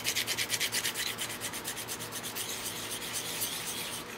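A small metal part rubbed back and forth on a hand-held sharpening stone, stoning a nipped-off pin stub flush: quick scraping strokes, about six a second, that blur into a steadier rub about two seconds in and stop near the end.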